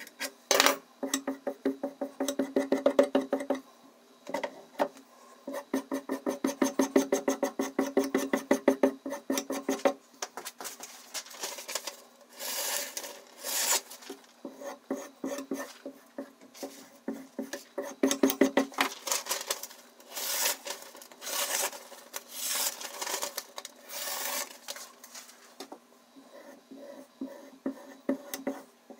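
Diamond whetstone on a guided knife sharpener being stroked rapidly back and forth along a steel steak knife's edge: two long runs of quick, even scraping strokes. After that come scattered clanks and scrapes of metal handling as the knife clamp and stones are worked.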